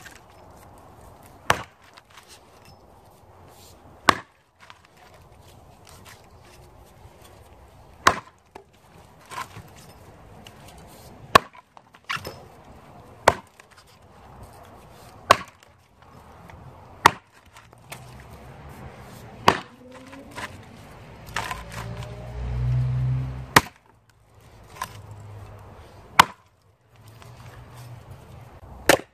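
Cold Steel Trail Boss axe, with a drop-forged carbon-steel head on a hickory handle and not yet sharpened, chopping into a log. About a dozen sharp thwacks land at an uneven pace of roughly one every two seconds. A low rumble swells briefly between strikes a little after the middle.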